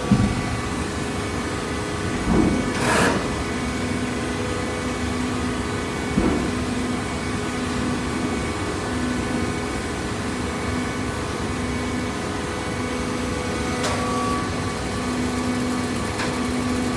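Horizontal hydraulic carton baler running: the steady hum of its hydraulic power pack, with a tone that cuts in and out about once a second. There are a few clunks in the first few seconds and a short hiss about three seconds in.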